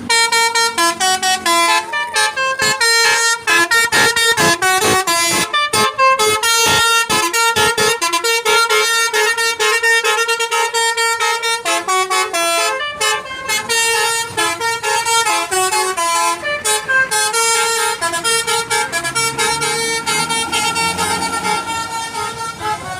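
Bus telolet basuri horn, a multi-trumpet melodic horn, playing a loud tune: a run of quick short notes for the first several seconds, then longer held notes.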